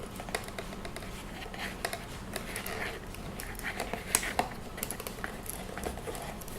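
Hard plastic packaging being handled: scattered small clicks, taps and scrapes as the camera is worked at on its display stand, not yet coming free.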